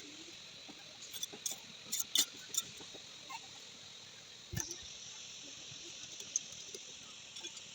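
Hill chickens moving about and pecking: a scatter of sharp taps and clicks, with one heavier thump about four and a half seconds in, over a steady high hiss.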